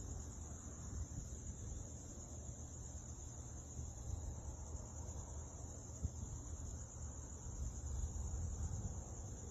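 Steady high-pitched chorus of night insects, trilling without a break, over a low rumble.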